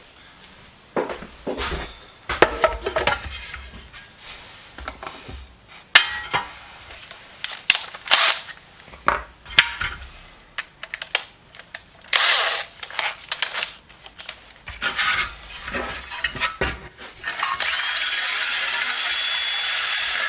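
Steel sockets and small tools being lifted out and set down, a long irregular series of metal clinks and clatters. About three-quarters of the way in, a power tool starts and runs steadily with a thin high whine.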